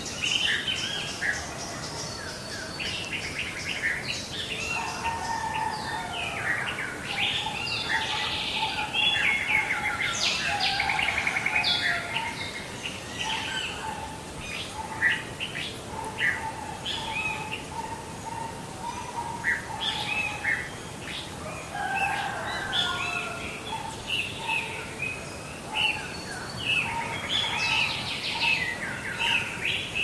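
Several songbirds singing at once: a dense chorus of short overlapping chirps, whistles and trills. It is busiest about a third of the way in and again near the end.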